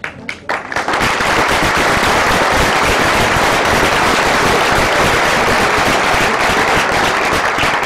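Audience applauding: a few scattered claps that build within about a second into steady, dense applause.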